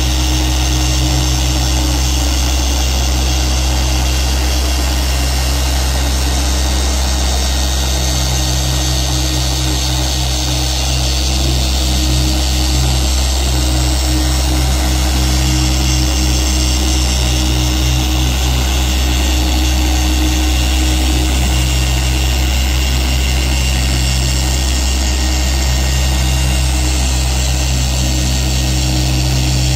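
Dual-action polisher running steadily with a foam pad on car paint: a constant motor hum with a low drone.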